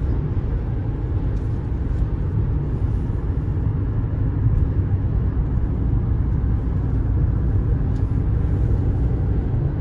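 Steady low rumble of road and engine noise heard inside a car's cabin while it drives along a highway.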